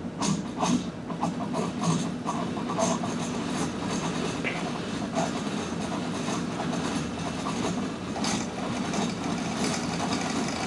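Motor-driven bicycle wheels spinning in opposite directions: a steady mechanical whirring and rattling, with clicks and ticks scattered through the first few seconds.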